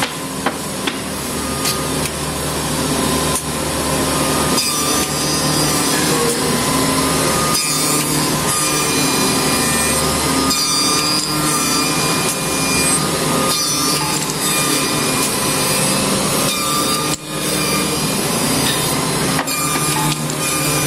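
Wooden train track shaping machine running, its spinning cutter heads milling wooden track pieces as they are fed through: a steady machining noise with several held tones that shift as pieces pass the cutters, and a brief dip about 17 seconds in.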